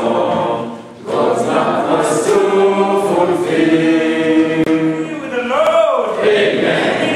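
Congregation singing a hymn together in long held notes, with a short break for breath about a second in.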